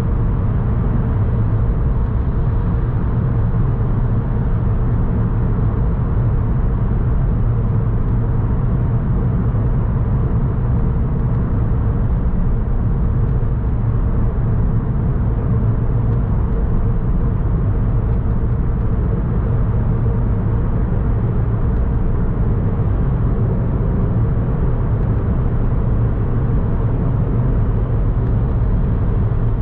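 Car driving along city streets, heard from inside the vehicle: a steady low rumble of engine and road noise.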